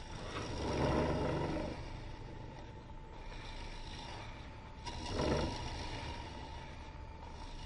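Jet Mini wood lathe running with a steady hum while a gouge cuts into the spinning end grain of a green-wood blank, hollowing a small centre recess. The cutting grows louder twice: about a second in for over a second, and briefly again near five seconds.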